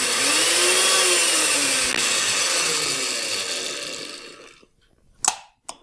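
Makita 7104L chain mortiser running free with nothing in the cut, its chain freshly oiled: the motor and chain run up, then wind down and coast to a stop about four and a half seconds in. Two short clicks follow near the end.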